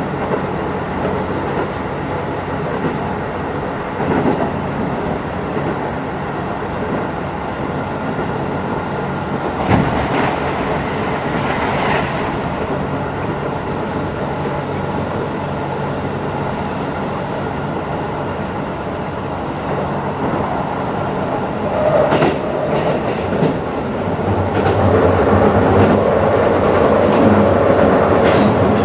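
A Keisei 3050-series electric commuter train running, heard from inside a car: steady rolling noise with occasional sharp clacks from the wheels. About five seconds before the end the running gets louder, with steady motor tones from its VVVF-inverter drive.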